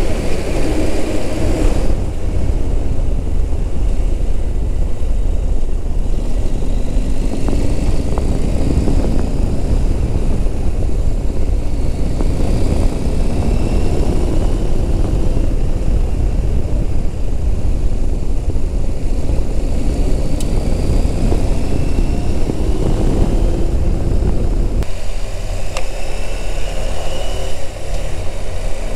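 Adventure motorcycle riding on a dirt road, its engine note rising in pitch again and again as it accelerates and changes gear. A heavy, steady low rumble of wind and road noise lies under the engine throughout, and the sound's texture changes about 25 seconds in.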